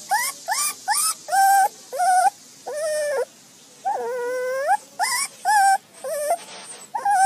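Pomeranian puppy whining in a string of about a dozen short, high-pitched whimpers, each rising at the start, with two longer drawn-out whines around the middle.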